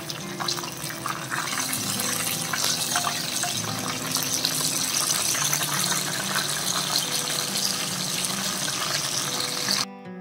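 Whole fish shallow-frying in hot oil, a steady crackling sizzle with many small spits and pops. The sizzle cuts off abruptly near the end.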